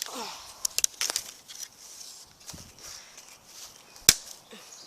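Sharp cracks and snaps of a dry stick being broken by hand, with light rustling of brush; a cluster of snaps in the first second and the loudest crack about four seconds in.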